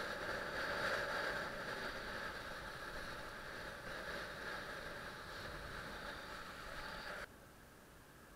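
Steady rushing of wind and water on an action camera carried by a kitesurfer riding across choppy water. It cuts off suddenly about seven seconds in, leaving a fainter hiss.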